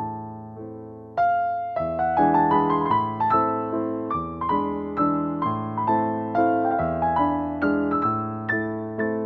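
Background piano music: a few soft notes, then fuller, louder playing from about a second in.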